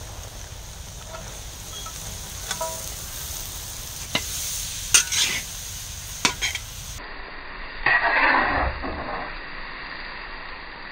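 Chopped vegetables sizzling in a large metal kadhai over a wood fire, with a long metal spatula scraping and clanking against the pan as they are stirred. There are a few sharp scrapes in the middle and a longer, louder scrape a little after that.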